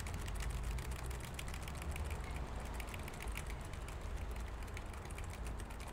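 Small desktop PC running just after power-on: a steady low hum with fast, faint, irregular ticking over it.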